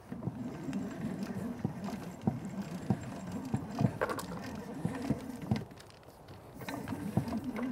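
Liberty wall-mounted hose reel being hand-cranked, its crank and drum clattering with quick uneven clicks as the garden hose winds onto it. The winding eases off briefly about six seconds in, then picks up again.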